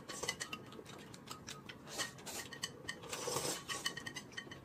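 Spoon and chopsticks clicking against a glass soup bowl and a plate as people eat, many small light clicks, with a brief slurp of noodles about three seconds in.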